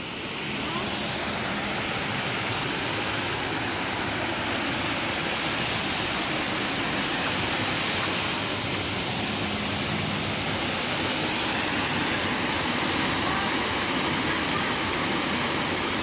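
Waterfall pouring into a rock pool: a steady, unbroken rushing of falling water.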